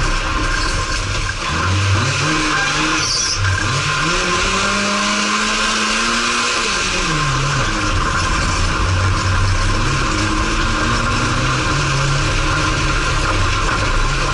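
Race car engine heard from inside the cabin on a dirt autocross track, revs climbing and falling several times, with a long climb in the middle that drops away as the driver lifts. Constant road and gravel noise and a steady high whine run underneath.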